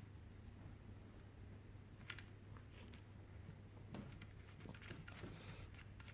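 Faint clicks and light handling of a plastic plug-in connector as its pins are lined up and pushed together, one sharper click about two seconds in, over a low steady hum.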